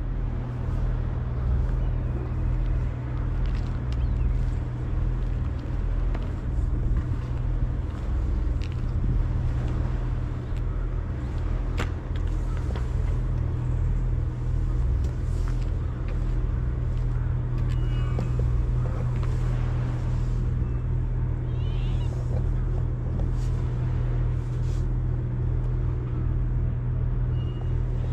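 An engine idling steadily, with a low, even throb that neither rises nor falls.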